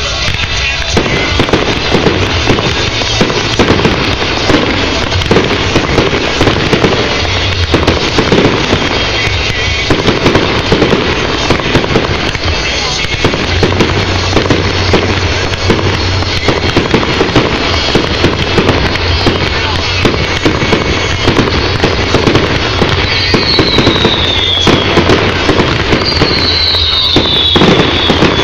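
Fireworks bursting in a rapid, continuous barrage of bangs and crackles. Near the end, two whistling shells give falling whistles.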